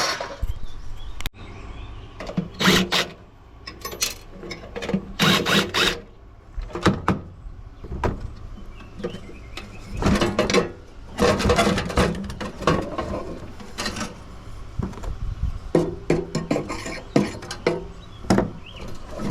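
Metal parts and hand tools being worked while a coffee maker is dismantled: irregular clanks, rattles and scrapes with a few short mechanical whirs.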